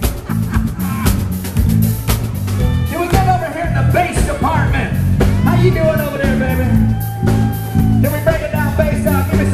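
Live funk band playing, with a repeating electric bass line and drum kit. A voice sings over the band from about three seconds in.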